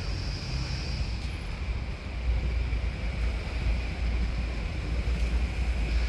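Steady outdoor background noise: a low, fluctuating rumble with a faint steady high-pitched drone over it.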